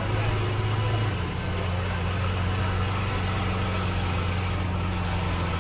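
Car engine running steadily with a low, even drone that settles slightly lower in pitch about a second in.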